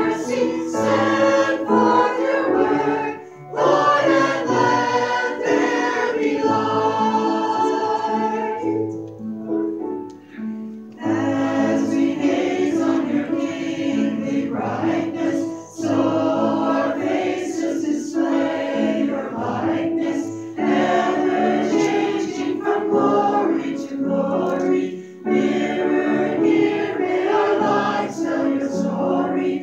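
A small church praise team singing a worship song in harmony through microphones, accompanied by a grand piano, with a brief lull between phrases about ten seconds in.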